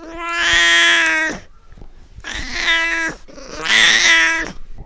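Cat meowing three times, long calls of about a second each held at a steady pitch, as the voice of a clay cat puppet.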